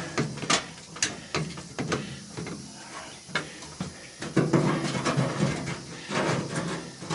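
Scattered clicks, knocks and scrapes of a pry bar and hands working at the plastic retaining clip on the underside of a washing machine's water pump.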